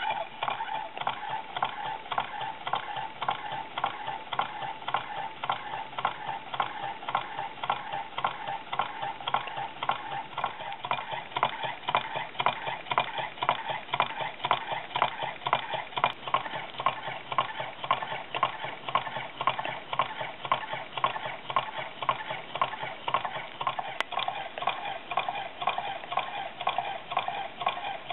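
Small homemade Stirling-cycle hot-air beam engine running steadily on a spirit flame, its scrap-built linkage and flywheel clicking in a quick, even rhythm over a steady hum.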